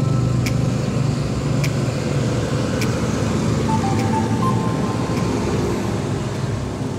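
An engine running steadily with a low hum, with a light tick about once a second.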